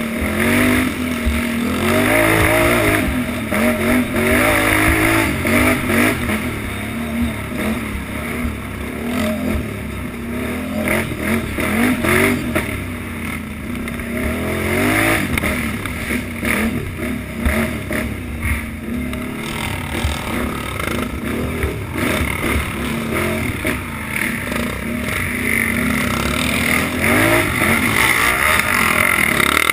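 Utility ATV engine revving up and down as it is ridden hard over a rough dirt trail, with frequent rattles and knocks from the bumpy ground.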